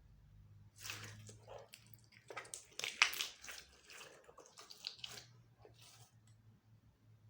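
Hands squishing and stretching slime: a run of short wet, sticky squelches and crackling pops, loudest about three seconds in, dying away after about six seconds.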